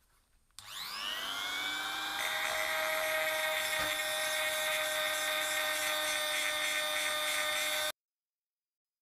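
Electric die grinder with a mounted abrasive stone spinning up with a rising whine, then running at a steady high whine before cutting off abruptly near the end.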